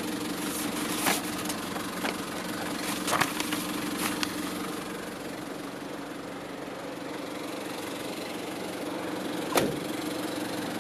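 Nissan TD27ETi 2.7-litre four-cylinder turbo diesel idling steadily. Paper rustles and a few clicks come in the first few seconds, and a single sharp knock comes near the end.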